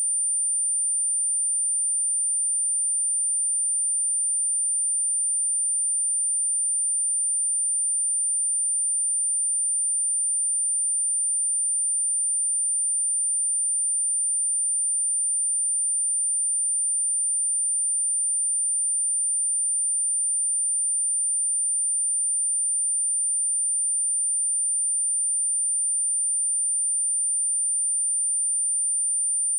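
A 9169 Hz sine-wave test tone: one pure, high-pitched tone held at constant pitch and level.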